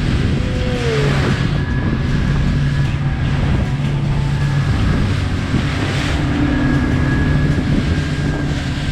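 Fishing boat's engine running steadily under a wash of water and wind noise that swells every few seconds.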